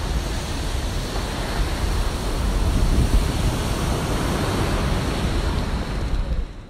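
Ocean surf breaking and washing ashore, with wind rumbling on the microphone. It fades out near the end.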